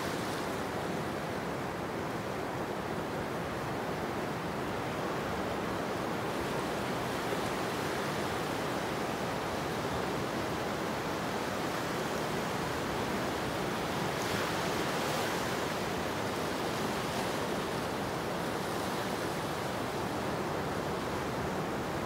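Ocean surf: small waves breaking and washing up a sandy beach in a steady rush. A brighter swell of wash comes about two-thirds of the way through.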